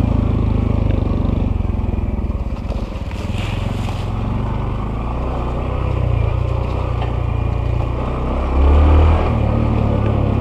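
Honda CT125's single-cylinder four-stroke engine running steadily while the bike rides a dirt trail, with a short louder rise in engine note about three-quarters of the way through.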